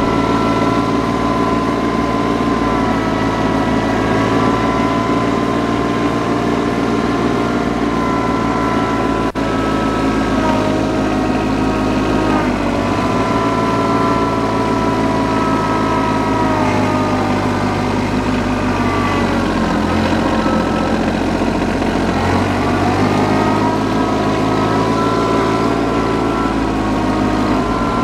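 TYM compact tractor's diesel engine running steadily as the tractor drives across a tilled field. Its pitch sags a few times in the middle and then climbs back up.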